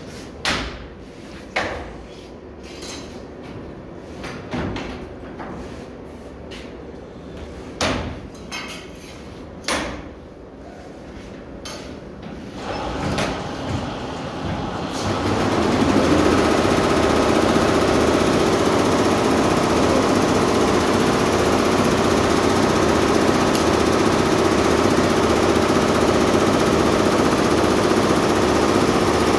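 Multi-head sequin embroidery machine. For about the first twelve seconds there are scattered sharp clicks and knocks; the sound then swells over a few seconds and settles into a steady, loud, dense running clatter of the many stitching heads.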